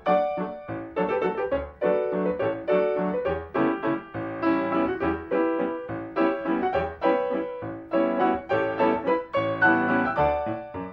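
Solo piano music: a brisk accompaniment of struck chords and melody notes, several a second.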